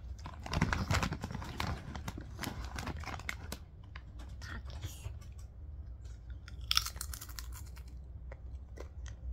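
A child crunching and chewing a crisp keropok cracker: a dense run of crackly crunches in the first few seconds, then quieter, sparser chewing, with a short sharper crackle a little past the middle.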